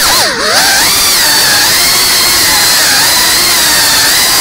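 FPV drone's electric motors and propellers whining at high pitch. The pitch drops sharply and climbs back about half a second in as the throttle is cut and reapplied, then holds fairly steady.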